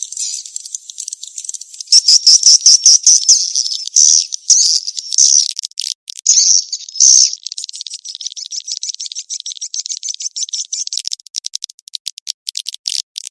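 Recorded edible-nest swiftlet calls used as a lure for a swiftlet house, a mating-chase call track: rapid, high-pitched chittering trills. Loud buzzy chirps come in the first half, then turn into fast, even runs of clicks.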